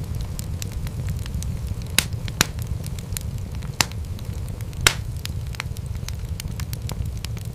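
Wood fire crackling in a fireplace: scattered sharp pops and crackles over a steady low rumble of the flames, with a few louder pops, the loudest about five seconds in.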